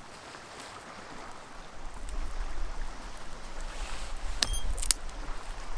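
Wind buffeting the microphone in low rumbles, with two sharp clicks about half a second apart near the end.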